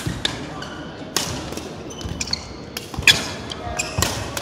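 Badminton rally: sharp cracks of rackets striking the shuttlecock, about one a second, the loudest about three seconds in. Short squeaks of shoes on the court floor come between the hits.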